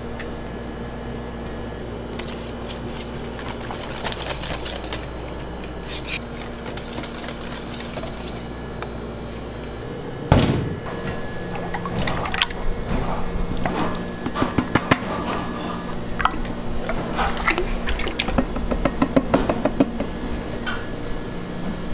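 Stainless steel bowls being handled on a steel kitchen counter over a steady background hum. About ten seconds in a bowl knocks down loudly on the counter, followed by repeated clinks, knocks and the pouring of liquid cream from a carton into a bowl near the end.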